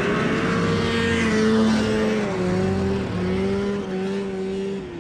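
Rupp Nitro snowmobile's two-stroke engine running at low revs, its pitch steady with slight wavering, as the sled coasts to a stop on the ice.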